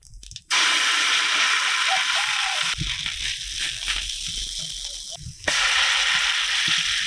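Leftover-rice patties sizzling in hot oil in a frying pan, a loud steady hiss that starts suddenly about half a second in and jumps abruptly in level twice.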